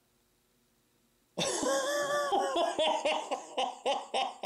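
Near silence, then about a second and a half in a man suddenly bursts into excited, disbelieving laughter: a drawn-out voiced cry that breaks into quick pulses, about four a second.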